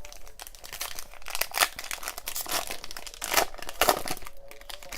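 Crinkling and rustling of plastic packaging as baseball cards are handled, in a quick irregular series of sharp crackles, loudest a little past halfway.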